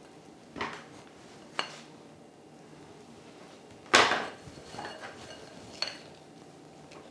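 Kitchenware being handled on a wooden worktop: five short knocks and clinks, the loudest about four seconds in.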